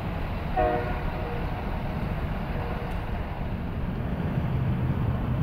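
GE90-115B turbofans of a Boeing 777-300ER climbing away after takeoff, heard from the ground as a steady low rumble. A short pitched sound cuts in about half a second in.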